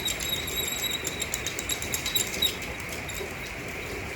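Cedar hand-drill spindle spinning back and forth in a cedar fireboard, giving high squeaks and scratchy friction clicks that ease off about two and a half seconds in, as the drill works toward burning in a socket.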